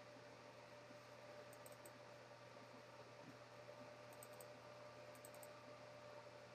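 Near silence: room tone with a steady low hum and a few faint computer mouse clicks in small clusters, about two, four and five seconds in.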